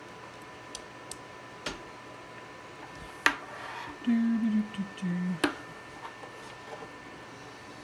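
Scattered clicks from handling the radio gear and its cables, with one sharp, ringing click about three seconds in. Two short low buzzing tones follow about a second later, and then another sharp click.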